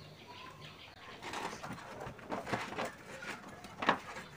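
Rustling, rubbing and squeaking of a partly inflated rubber bicycle inner tube being worked by hand into the tyre, with a sharp click a little before the end.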